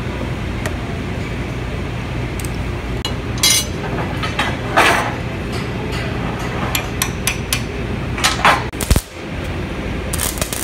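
A ball-peen hammer tapping small steel plates on a steel welding table: a scattered series of sharp metallic knocks and clinks, some in quick runs, over a steady workshop hum.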